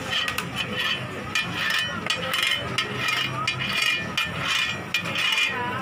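Metal spatula and knife scraping and tapping on a flat griddle as a crispy butter pancake slab is cut and its pieces loosened: a quick, irregular run of clicks and scrapes.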